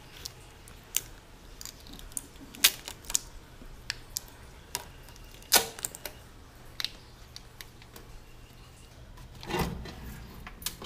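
Scattered clicks and light knocks from a Camp Chef Deluxe Outdoor Camp Oven being handled as its door is opened and the contents are moved, with a brief rustle near the end.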